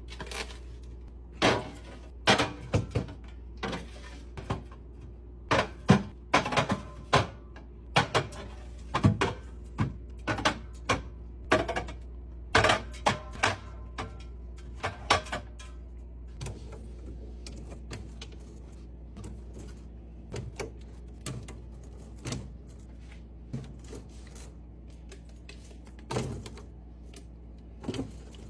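Drink cans and bottles being set into a mini beverage fridge, clinking and knocking against each other and the shelves, many in quick succession for the first half and only a few scattered ones later. A steady low hum sits underneath.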